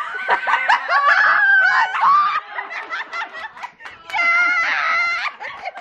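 A group of people laughing and shrieking in excitement, with a name shouted out about two seconds in.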